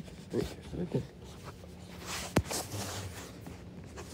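Footsteps and phone-handling noise indoors over a steady low hum, with one sharp click about two and a half seconds in.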